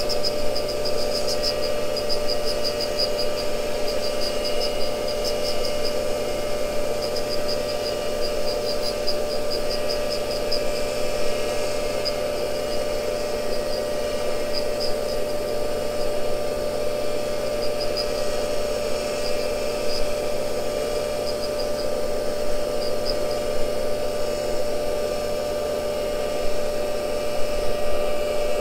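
Cincinnati tool and cutter grinder running with a steady hum while its wheel grinds the outside diameter of an end mill turned in a Rotadex fixture. A rapid light ticking of the cutter's flutes against the wheel runs through the first half, then thins to occasional ticks as the cutter comes to final size.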